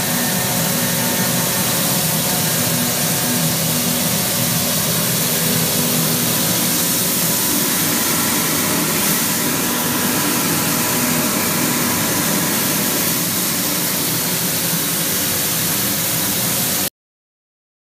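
Double-stage strand pelletizing line running on hard plastic: a steady machine hum with a few held tones under a strong hiss, cutting off suddenly near the end.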